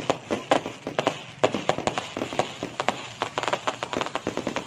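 Fireworks going off in a rapid, irregular string of bangs and crackles, several a second.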